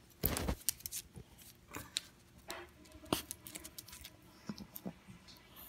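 A Yorkshire terrier's claws clicking irregularly on a hard floor as it walks, with a heavier knock about a third of a second in.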